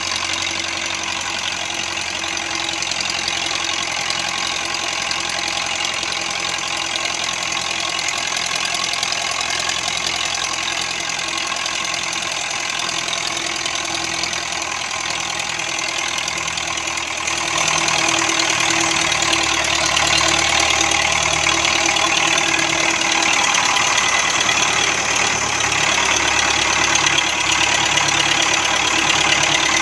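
Tractor diesel engine running steadily while pulling a heavily loaded trolley, with a knocking engine note. A little past halfway through it grows louder and fuller.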